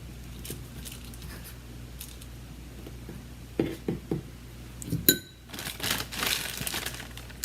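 Fork and spoon clinking and scraping against a bowl while crackers are dipped in melted chocolate. There are a few light knocks, one sharp ringing clink about five seconds in, and then scraping and rustling.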